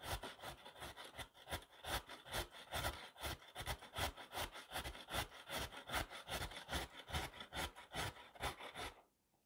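A carrot rasped up and down a stainless-steel box grater in quick, even strokes, roughly three to four a second. The grating stops suddenly near the end.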